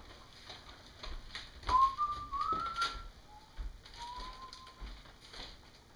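A few short whistled notes, stepping up in pitch, then two softer, lower held notes, with crinkling paper and small clicks around them.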